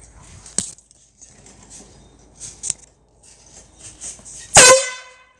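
Handheld canned air horn blasting once near the end: a single short, very loud blare on one steady pitch with a brief dip at the start, fading within about a second. A couple of faint knocks come before it.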